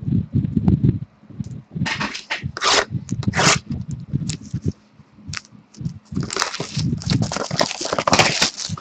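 A sealed box of trading cards being unwrapped and opened by hand: plastic wrapping crinkling and tearing in short bursts, with soft knocks of the cardboard being handled. The crinkling is densest near the end.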